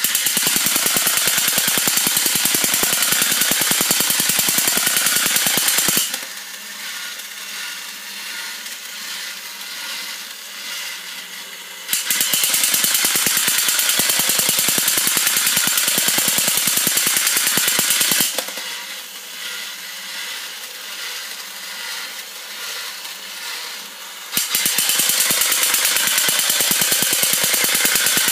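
Battery-operated vintage Hong Kong toy robot running through its action cycle: spells of loud, rapid clatter as its tummy guns fire, each about six seconds long and coming three times, alternating with a quieter steady motor whir as it turns.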